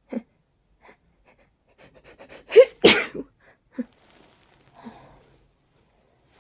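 A person sneezing once, hard, about two and a half seconds in, after a run of short catching breaths, followed by a few short gasps and a breath. The sneezing comes from allergies and a cold.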